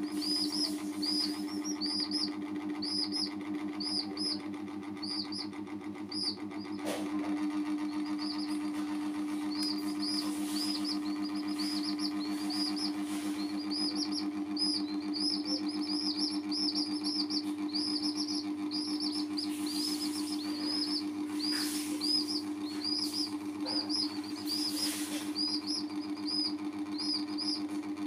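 Baby chicks peeping steadily, short high peeps about two to three a second, over a steady low electrical hum.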